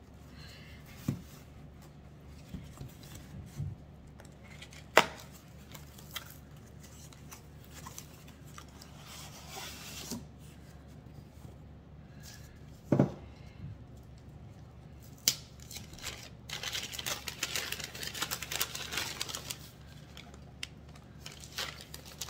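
Unpacking by hand: a few scattered sharp knocks and clicks as items are handled, then, in the last third, several seconds of quick rustling and tearing of paper packaging.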